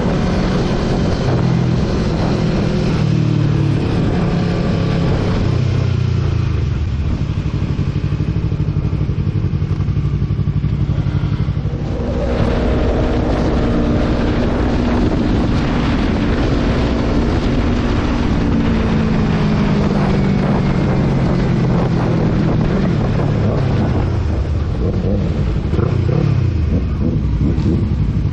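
Motorcycle engine running under way, its pitch rising and falling several times with throttle and gear changes.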